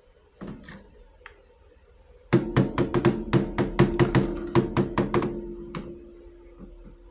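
Miniature toy kitchenware being tapped and clinked: a couple of light clicks, then a quick run of about fifteen sharp taps over some three seconds, leaving a ringing tone that fades away.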